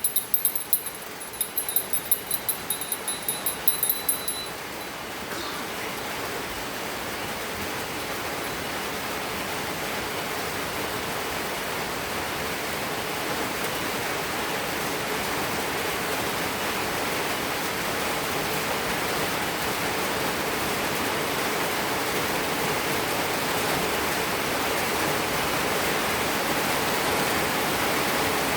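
Rain falling steadily, an even rush of water that grows slightly louder. During the first few seconds a quick run of sharp taps with a high ringing sound over it.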